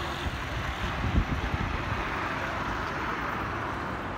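Steady wash of city street traffic from the road below, with a few low thumps about a second in.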